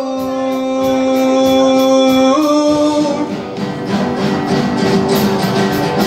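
A song with a voice holding a long sung "oh" that steps up in pitch about two and a half seconds in, then a guitar-led instrumental passage with light, steady percussion ticking.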